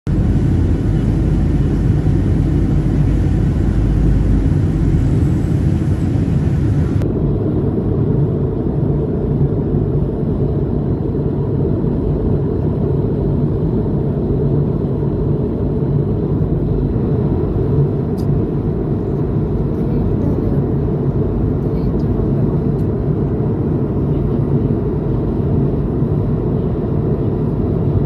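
Steady low rumble of a moving vehicle, with no clear engine note; the sound turns duller about seven seconds in.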